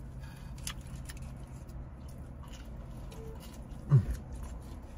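People eating pizza: soft chewing and mouth sounds with a few small clicks, over a steady low hum in the car's cabin. About four seconds in, one of them gives a short, low, falling "mm" of enjoyment.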